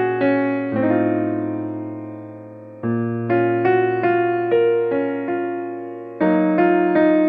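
Background piano music: struck notes and chords that ring and fade, with a louder phrase starting about three seconds in and another about six seconds in.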